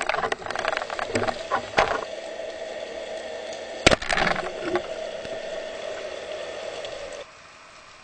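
Underwater clicks and knocks from a speargun being handled, with one sharp crack about four seconds in. A steady hum runs under it and cuts off suddenly near the end.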